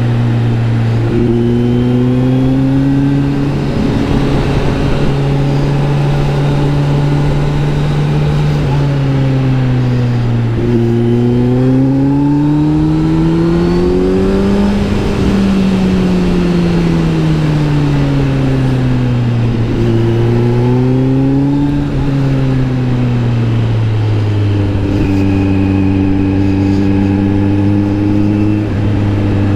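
Kawasaki Z900 SE inline-four running through an SC Project S1 exhaust while being ridden. The engine note holds steady, climbs under acceleration about a third of the way in, falls as the throttle rolls off, rises briefly again about two-thirds in, then settles to a lower steady note.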